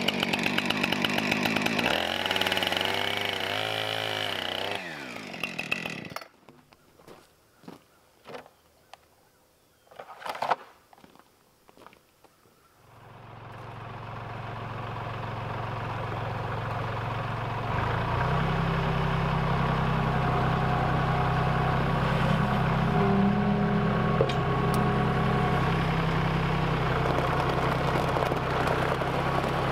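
Gas chainsaw cutting through a log at full throttle, its pitch dropping and wavering about two seconds in before it stops around five seconds in. A few seconds of quiet with light knocks follow, then a compact tractor's diesel engine comes up and runs steadily, stepping up to a higher speed about 18 seconds in.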